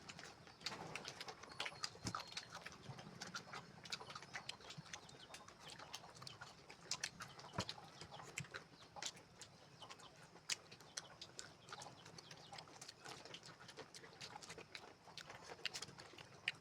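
Close-miked eating sounds: chewing with many irregular wet clicks and lip smacks.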